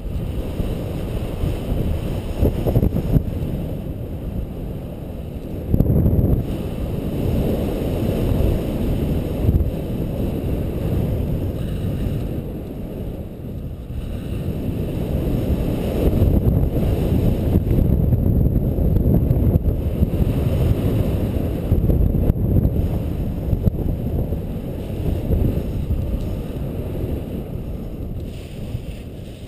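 Wind from a paraglider's flight rushing over the camera microphone: a low buffeting rumble that swells and eases in waves.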